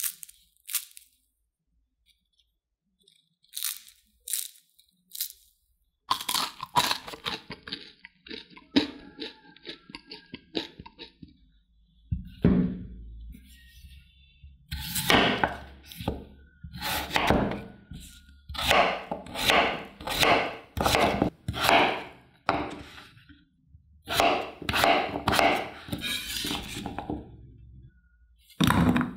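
A knife cutting peeled potatoes on a bamboo cutting board: a long run of chops, most of them about a second apart. In the first few seconds, a few sharp cracks, as of a crispy baked potato stick being snapped.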